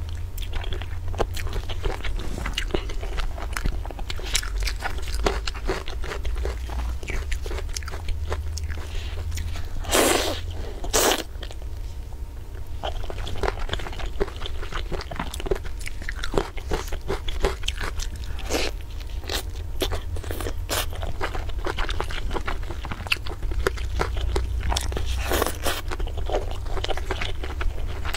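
Close-miked eating: biting, chewing and crunching on braised chicken pieces, with many wet smacks and clicks of the mouth. There are two louder, longer bursts about ten seconds in, and a steady low hum underneath.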